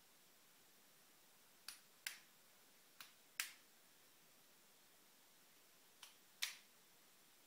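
Three pairs of sharp metal taps, each a lighter tap followed by a harder one under half a second later: hammer blows on a CNC router spindle held in a bench vise, working a spindle bearing loose.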